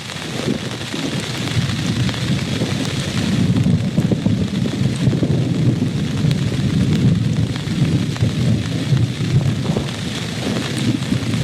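Steady rain with a continuous low rumble of thunder that swells through the middle.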